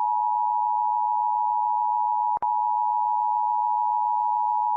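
Emergency alert attention tone: a steady, unbroken electronic tone held at one pitch, with a brief click and dropout about two and a half seconds in.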